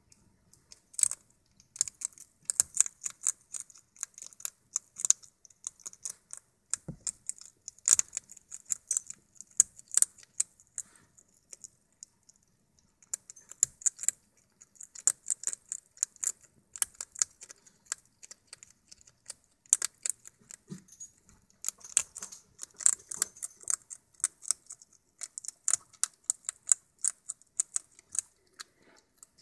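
African pygmy hedgehog crunching dry kibble pellets: rapid, crisp, irregular clicks in bursts, with a short lull a little before halfway.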